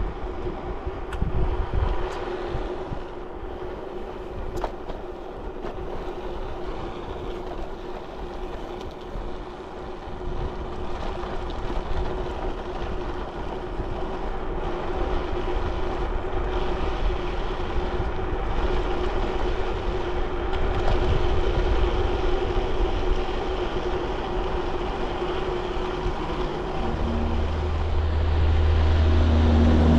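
Riding noise on a bicycle: gusts of wind on the microphone under a steady hum. A low, steady drone comes in near the end.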